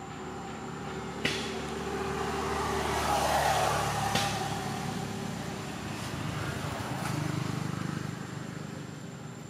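A motor vehicle passing by, its engine noise swelling to a peak a few seconds in and then fading away, with a couple of sharp clicks along the way.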